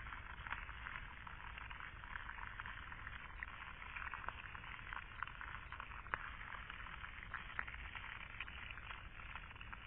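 Faint, steady crackle of many tiny pops and clicks, like a fizzing.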